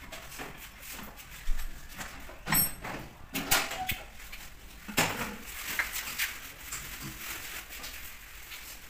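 Scattered knocks and metallic clanks as motorbikes are wheeled onto a steel-framed lift platform, mostly in the middle few seconds, one with a brief high metallic ring.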